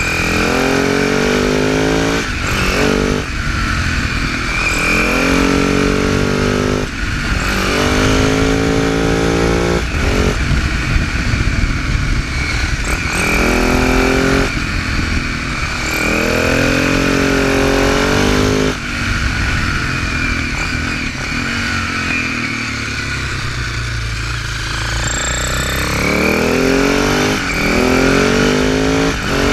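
Husaberg FS650 single-cylinder four-stroke supermoto engine pulling hard through the gears. Its note rises in each gear and drops at every upshift. Late on it settles into a lower, steadier note, then revs up again near the end.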